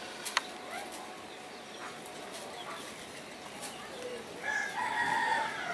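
A chicken gives one held call, about a second long, near the end, over a steady outdoor background with a faint tick or two.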